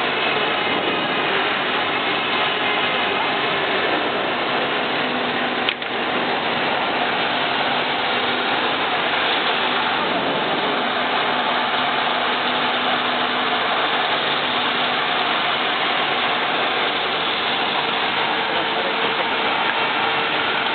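Steady mechanical hum and hiss from an automatic tank welding machine and its equipment, with one sharp click about six seconds in.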